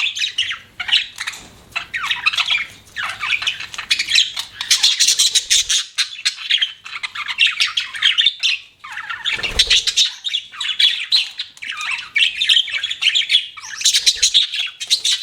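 Budgerigars chattering and chirping without pause: fast warbling, squawky calls overlapping one another.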